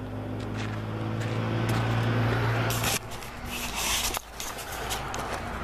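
A steady low engine hum that grows louder, then ends abruptly about three seconds in, followed by rubbing and a few knocks of the camera being handled.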